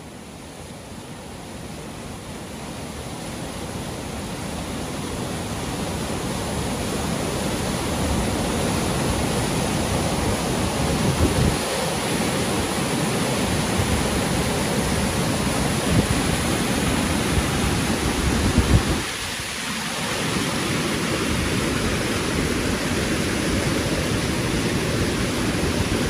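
Waterfall and mountain stream rushing over rocks: a steady, dense rush of water that swells up over the first several seconds and then holds loud and even, with a few brief low bumps in the middle.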